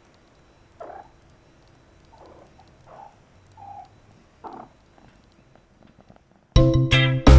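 Faint, short cat mews, about six of them spaced through the first four and a half seconds. Near the end, loud upbeat music with plucked guitar notes starts abruptly.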